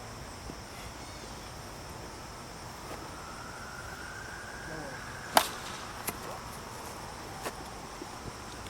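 A single sharp crack of a plastic wiffle ball bat hitting the ball about five seconds in, followed by a couple of fainter knocks.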